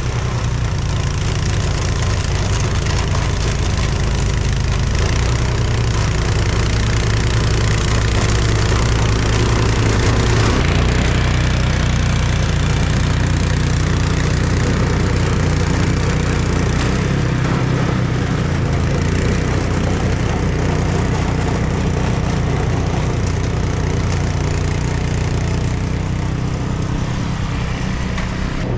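A vehicle engine running steadily with a strong low rumble, which eases slightly about two-thirds of the way through.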